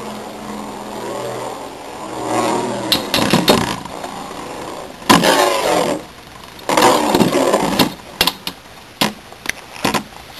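Beyblade Metal Fusion spinning tops whirring in a plastic stadium and clattering against each other, with many sharp clicks of collisions and a loud clash about five seconds in.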